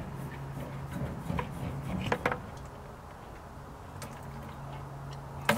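A few light knocks and clicks from a rubber hose and plastic bucket being handled at the car's fuel filler, over a steady low hum; the sharpest knock comes near the end.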